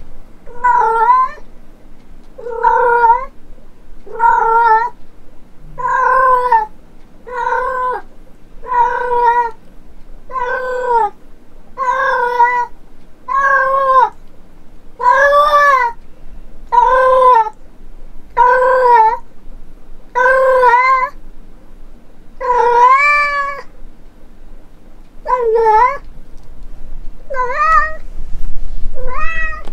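Domestic cat meowing loudly over and over, about seventeen drawn-out meows each rising and falling in pitch, one every second and a half or so, a little more spaced near the end. The cat is calling for its absent owner.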